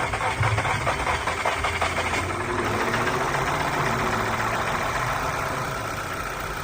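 Volkswagen Tiguan engine, just rebuilt, idling right after a restart. For the first couple of seconds it runs rough with rapid ticking, then it settles into a steadier idle, which the mechanic judges stable and acceptable.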